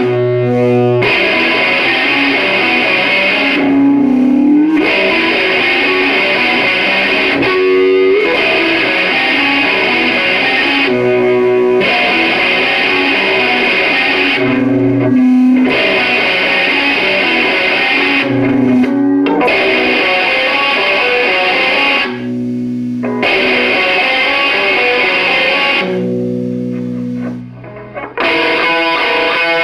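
Electra electric guitar playing a strummed chord phrase that repeats about every three to four seconds, with a low note ringing in the short breaks between phrases. The playing drops briefly in level near the end.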